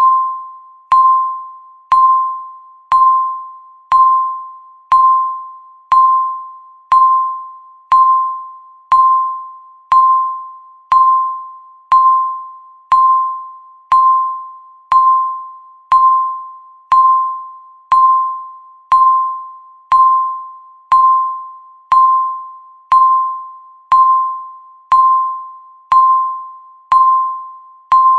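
Countdown timer beeping once every second: a single electronic tone with a sharp start that fades away before the next beep, ticking off the seconds in a steady, even rhythm.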